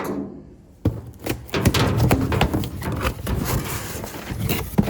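Parts and their packaging being handled and rummaged through: a quick run of clattering knocks and rustling.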